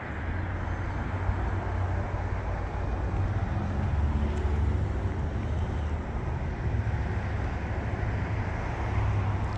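Steady low rumble of outdoor city ambience, with road traffic running continuously.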